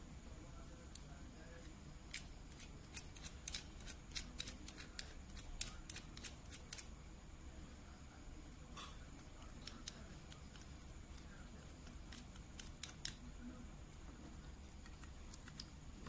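Plastic Beyblade parts, a W5-brand Judgement Joker, clicking in the fingers as they are handled and fitted together. There are two runs of quick, sharp clicks, one about two seconds in and another past the middle, over a faint steady hum.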